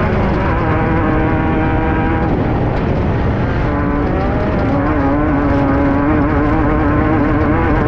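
Air-cooled 1600 cc VW engine of a Class 5/1600 off-road race car running hard, heard from inside the car over heavy rattle and rumble. The engine note sinks under the noise for a moment a little after two seconds in, then comes back and holds steady.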